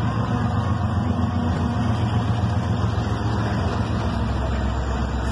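Ferromex diesel freight locomotives passing, a steady low engine drone with an even hiss over it.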